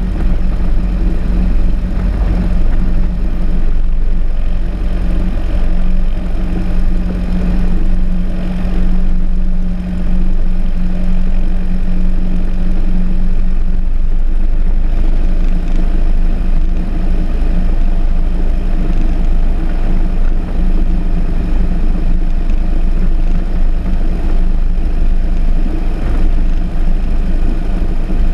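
Single-engine Cessna's piston engine and propeller running at low taxi power, a steady drone.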